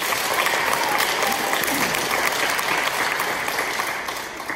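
Audience applauding: a dense burst of clapping that starts at once, holds steady and begins to thin out near the end.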